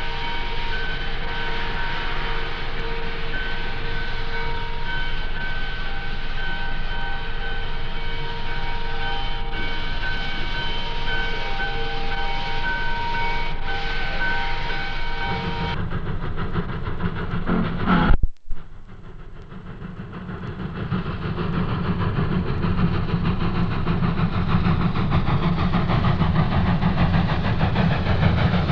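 Southern Pacific 4449 steam locomotive with the Freedom Train at night. For the first half a steady chord of several high tones sounds, then a loud click about 18 seconds in, after which the train's low rumble builds as it rolls past.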